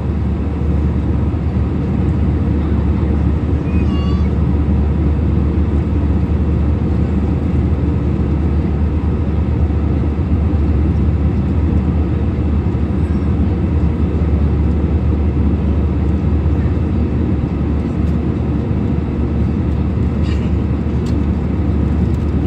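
Airliner cabin noise: a steady low rumble of engines and airflow. A brief, faint high-pitched cry or chirp, rising in steps, is heard about four seconds in.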